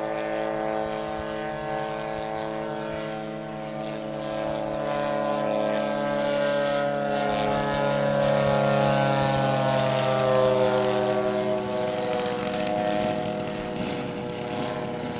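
Engine of a radio-controlled model warbird droning in flight, its pitch slowly dropping as it passes by, loudest about two-thirds of the way through.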